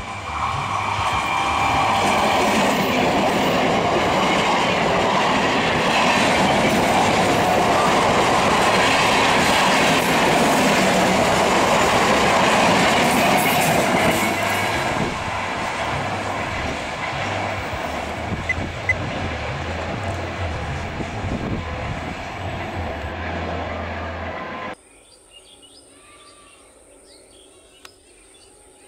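Electric multiple-unit local trains passing at speed: a loud, steady rush of wheels on rail with clickety-clack, easing a little about fourteen seconds in as a second train goes by. About 25 seconds in, it cuts off suddenly, leaving only a faint background.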